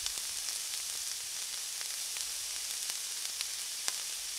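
Chicken pieces and chopped vegetables sizzling in a nonstick frying pan, a steady hiss, while a silicone spatula stirs them, making several light sharp ticks against the pan.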